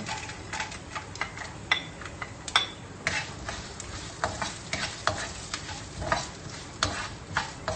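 Cashew nuts sizzling in hot ghee in a non-stick frying pan while a spatula stirs them, scraping and knocking against the pan at irregular intervals.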